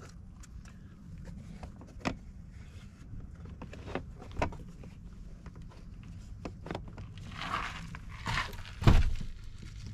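Plastic door-sill kick plate of a 2022 Ford F-350 Super Duty being pressed down and snapped into its clips: scattered clicks and knocks, a short rubbing of plastic about seven and a half seconds in, and a louder thump near the end as it seats.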